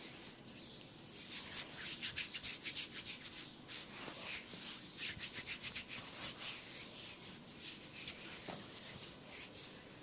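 Quick, rhythmic rubbing and scratching strokes on hair and scalp during a head massage, several strokes a second. They start about a second in and ease off near the end.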